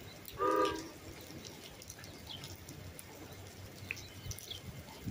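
A train horn gives one short multi-note blast about half a second in, from the approaching NJ Transit train. After it there is only low background noise with a few faint, short high bird chirps.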